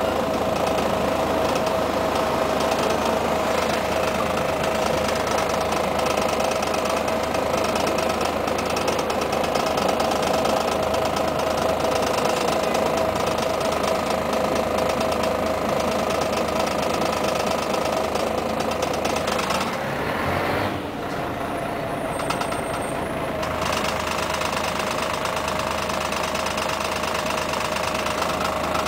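Scania CN113CLL city bus's 11-litre straight-six diesel idling, heard from inside the passenger cabin as a steady hum with a constant mid-pitched tone over it. The higher sounds are briefly muffled about twenty seconds in, then return.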